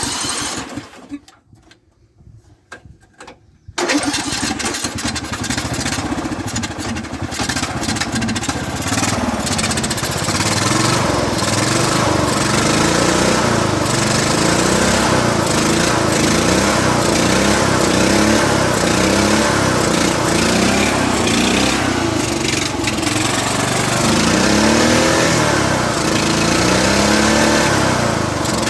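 Riding lawn mower engine, freshly fitted with a replacement carburetor, starting up about four seconds in and then running loudly. It is revved up and down over and over, its pitch repeatedly rising and falling back, as the throttle cable is pulled by hand.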